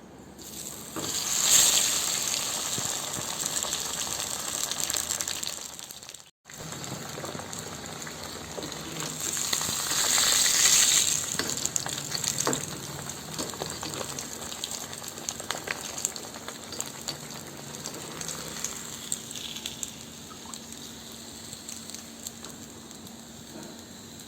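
Masala-coated pomfret sizzling and crackling in hot oil. The sizzle swells loudly twice, about a second and a half in and again about ten seconds in, then settles to a steadier, quieter crackle.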